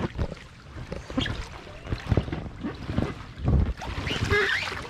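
Water splashing and sloshing around people climbing onto inflatable floats in a spring run, with wind buffeting the microphone and scattered irregular knocks and splashes.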